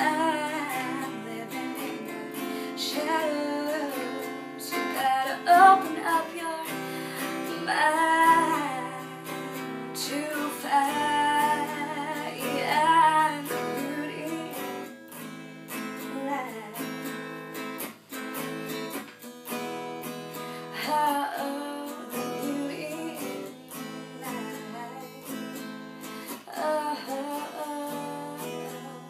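Acoustic guitar strummed while a woman sings, her sung phrases coming and going between guitar-only stretches.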